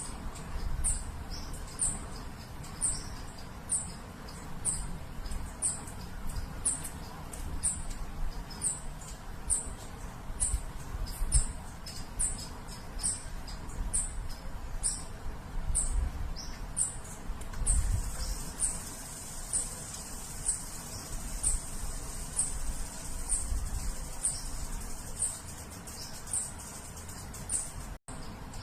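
A high, thin chirp repeated evenly, about three every two seconds, over a low rumble. About two-thirds of the way through, a steady high hiss joins in, and the sound cuts out for an instant near the end.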